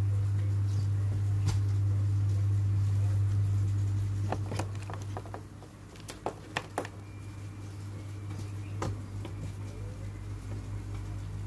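Light clicks and taps from a tablet's folio case as the cover is opened and laid flat on a desk, most of them bunched in the middle, over a steady low hum.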